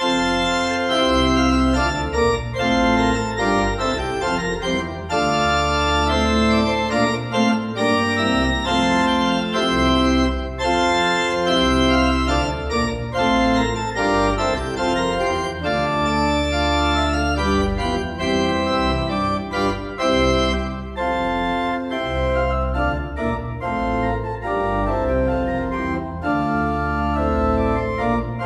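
Pipe organ playing full chords over long-held deep bass notes, starting suddenly.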